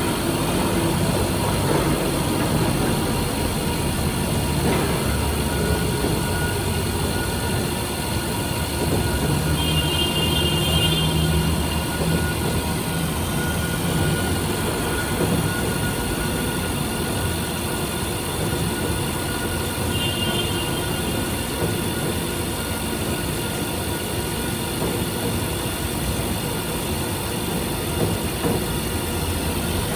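Milling machine running steadily as it takes a fine finishing pass across an A2 steel plate, with a low rumble throughout. A brief high whine comes in about ten seconds in and again about twenty seconds in.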